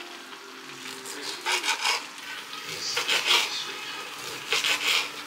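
A serrated knife sawing through a link of beef kielbasa on a plastic cutting board, in three bursts of quick back-and-forth strokes.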